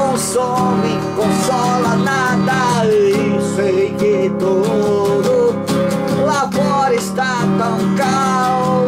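Music: an acoustic guitar strumming chords, with a wavering, sliding melody line over it.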